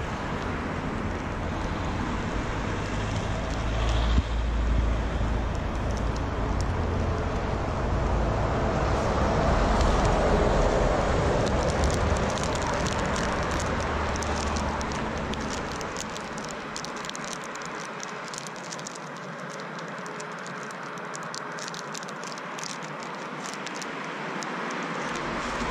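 Steady outdoor street noise with wind rumbling on the camera microphone, swelling for a few seconds about ten seconds in as if a vehicle passes. Fine crackling rustles run through the second half.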